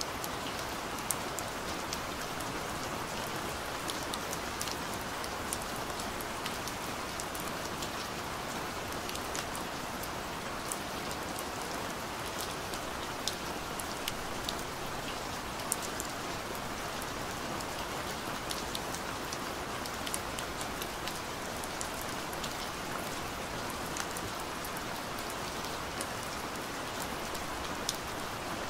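Steady rain falling, a continuous even hiss with many small, sharp drop ticks scattered through it.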